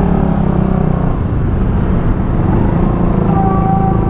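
Motorcycle engine running steadily under way, with road and wind rumble. A short steady tone enters about three seconds in.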